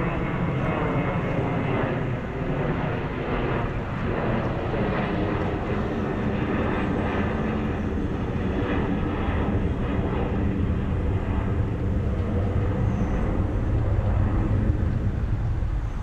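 Boeing 737-800 airliner's twin jet engines at climb thrust just after takeoff: a steady, rumbling jet noise heaviest in the low end, growing a little louder near the end.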